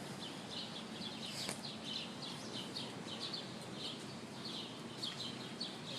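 Small birds chirping repeatedly, a few short high chirps a second, over a steady background hiss.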